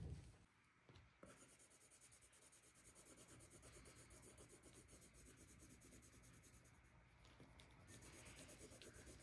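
Coloured pencil scratching on paper in quick back-and-forth hatching strokes, faint, starting about a second in.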